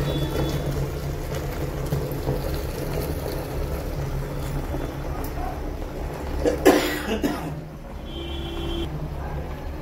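Waste water from a water-treatment plant's flush running out of a drain hose into a bucket of foamy water, over a steady low machine hum. A short loud burst, like a cough, about two-thirds of the way in.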